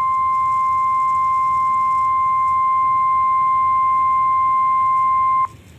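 NOAA Weather Radio 1050 Hz warning alarm tone: one loud, steady pitch that cuts off suddenly about five and a half seconds in. It signals that a warning message is about to be broadcast.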